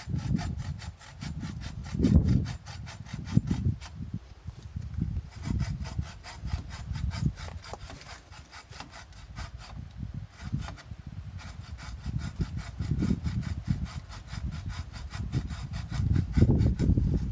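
Hand saw cutting through a dead tree limb in steady, repeated back-and-forth strokes. The limb is nearly cut through and about to drop. Louder low rumbles come and go over the sawing.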